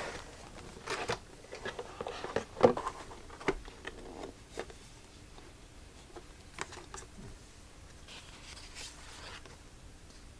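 Cardboard box and paper inserts being handled: scattered clicks, taps and scrapes of the cardboard, busiest in the first half, then a soft rustle of paper sliding near the end.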